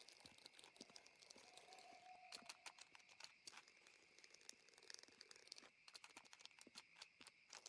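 Near silence: faint scattered clicks over a faint steady hiss.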